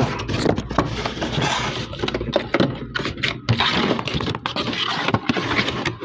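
Cardboard toy box being cut and pulled open: continuous scraping and crackling with many small sharp clicks.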